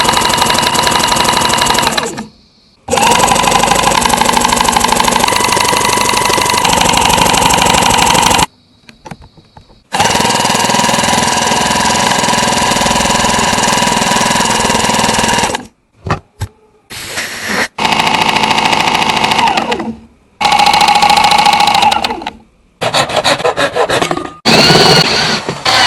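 A power tool running in runs of a few seconds each with a steady whine, stopping and starting again several times. Near the end the runs get shorter and the pitch slides.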